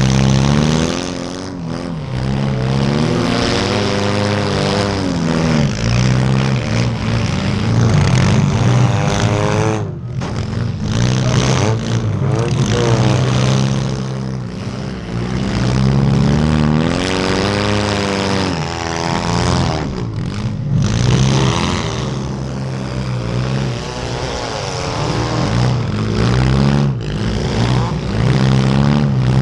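A compact demolition derby car's engine revving up and down over and over as the car is driven hard, heard close up from the car's own hood.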